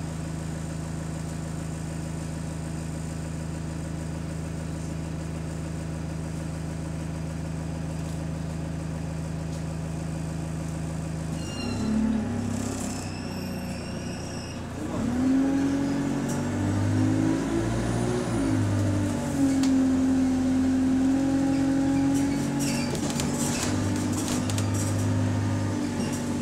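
A bus's diesel engine idling steadily, heard from inside the saloon. About eleven seconds in, the note changes as the bus pulls away, and from about fifteen seconds the engine note climbs as the bus accelerates, then holds while it drives on.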